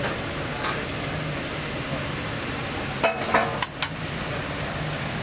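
Food sizzling as it fries on a hot cooking surface, a steady hiss. A few sharp clatters about three seconds in.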